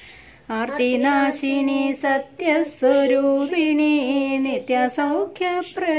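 A woman's voice singing a Malayalam devotional chant (namajapam) unaccompanied, in held melodic lines, starting about half a second in.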